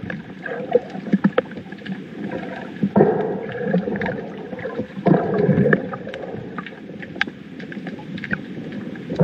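Muffled underwater sound picked up by a submerged camera: churning water with scattered small clicks, and heavier rushing surges about three and five seconds in and again near the end.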